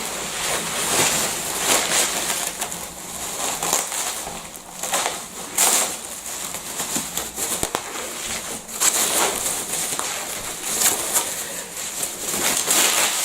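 Bubble wrap and plastic packaging being handled and pulled off, crinkling and rustling with irregular crackles.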